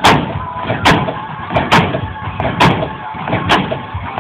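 A 1967 lowrider car hopping on its suspension: five heavy thuds, one a little under each second, as the front end drops and lands on the street.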